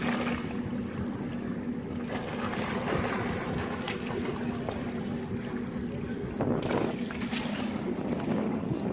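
Wind rumbling on the microphone over moving water, with a steady low hum. Several brief splashes come through as striped bass strike bait fish at the surface, a cluster of them near the end.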